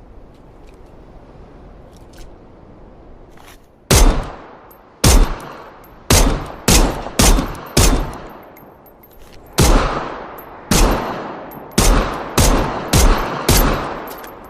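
Glock 17 Gen 4 9 mm pistol firing about a dozen shots, starting about four seconds in, at an uneven pace: some a second or more apart, some in quick pairs and runs. Each shot has an echoing tail.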